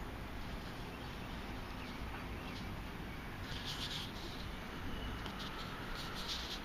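Steady low wind rumble on the microphone, with two short scratchy sounds about three and a half and six seconds in.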